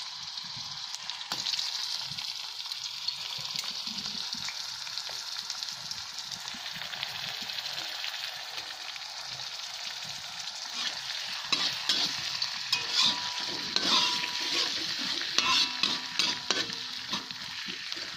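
Chopped seasoning sizzling steadily in hot oil in a metal wok. From about two-thirds of the way in, a metal spatula stirs it, scraping and clinking against the wok.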